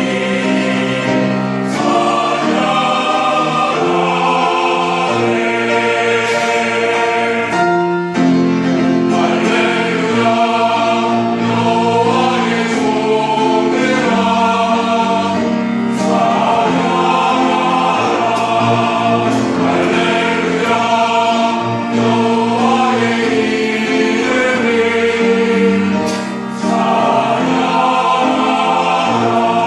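Church choir singing a hymn of praise with accompaniment, continuous with brief pauses between phrases.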